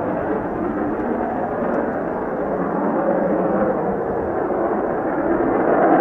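Mitsubishi F-2 fighter's single F110 turbofan engine in flight: a steady jet roar that grows a little louder near the end.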